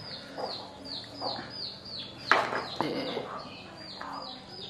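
Chickens clucking and peeping, with a steady run of short, high, falling cheeps about three a second. A sharp knock cuts in a little past two seconds in.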